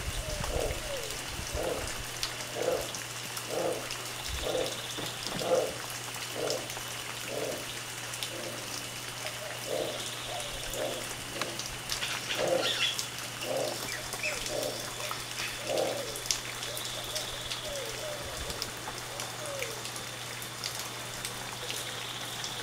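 Black howler monkey giving a rhythmic series of low pulsed calls, about one a second, that thin out and stop about sixteen seconds in.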